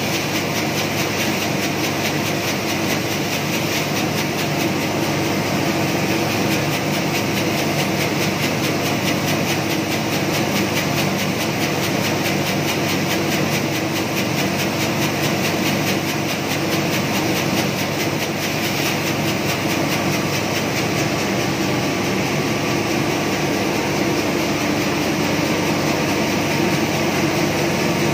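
Rice-milling machinery running steadily: a constant mechanical din with a fast, even rattle.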